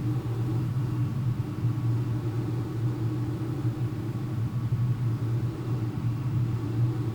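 Steady low rumble and hum of an RC glider in flight, with air rushing over the airframe, picked up by its onboard FPV camera.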